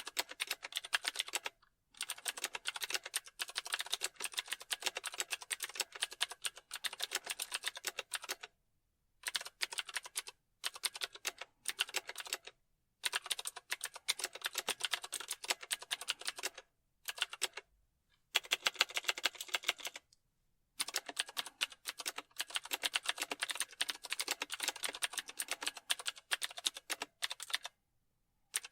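Typing on a computer keyboard: rapid key clicks in bursts of several seconds, broken by short pauses.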